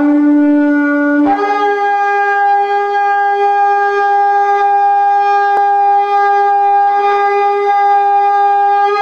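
Ram's-horn shofar sounding one long blast: it starts on a lower note, breaks up to a higher note about a second in, and holds that note steady.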